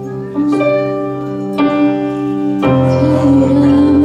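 Live worship keyboard music: slow, sustained piano chords, with a new chord struck about every second and a deep bass note coming in with the third chord.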